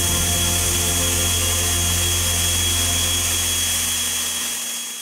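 Electric ducted fan on a bench test rig, running steadily with a high whine over rushing air. It dies away near the end.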